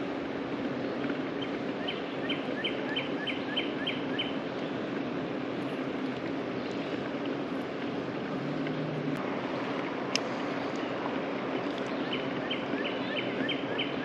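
Steady rush of flowing river water. A bird sings a quick run of about eight short falling notes, twice, the second run starting near the end.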